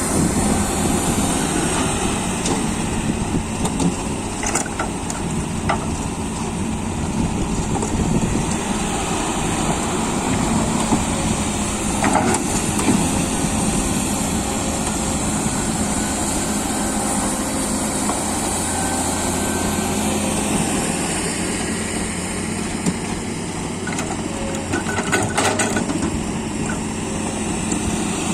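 Komatsu PC200 hydraulic excavator's diesel engine running steadily at working speed while it loads soil into a dump truck. A few short knocks come through, around a third of the way in, near the middle and near the end.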